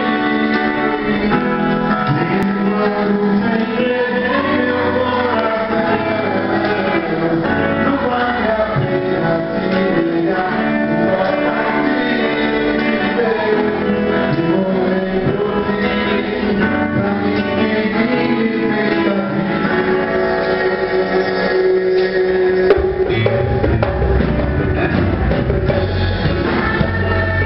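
A band playing a song, with a voice singing over guitar and drums.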